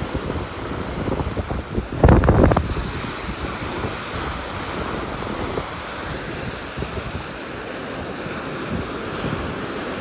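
Ocean surf breaking and washing up a sandy beach, under steady wind rushing over the microphone. About two seconds in, a strong gust buffets the microphone, the loudest moment.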